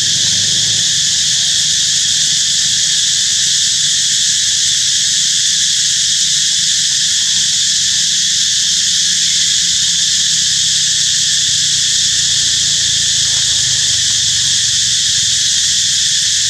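A steady, loud chorus of insects: an unbroken shrill drone that holds level throughout.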